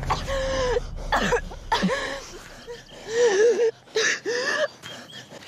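A young woman coughing and gasping for breath in about five rough vocal bursts, as a choking casualty struggles to clear her airway.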